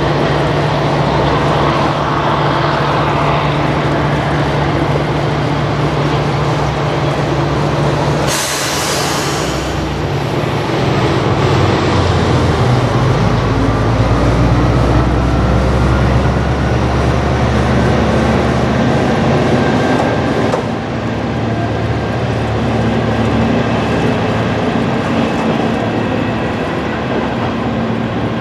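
Heisei Chikuho Railway 400-series diesel railcar running as it pulls away, its engine note steady with a faint whine rising in pitch as it gathers speed. A brief hiss comes about eight seconds in.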